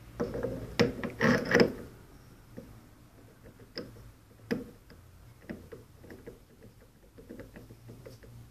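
Febi rear-axle strut top mount rocked by hand on its stud, clunking and clicking: a few loud knocks in the first two seconds, then lighter irregular clicks. This is play in the mount, the quality defect the uploader blames for the knocking from the rear suspension.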